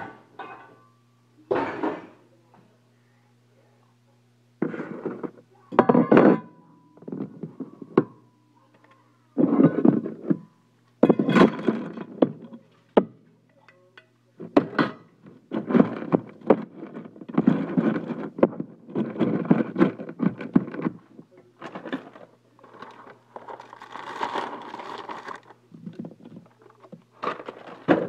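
A metal utensil scooping wet canned dog food and knocking and scraping it into stainless steel dog bowls: irregular thunks, clinks and scrapes, with a low steady hum underneath.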